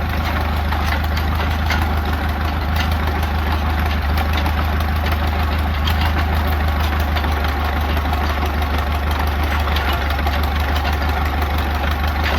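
Vintage tractor engine running steadily at an even, low speed. The engine has only a few hours on it and is not yet broken in.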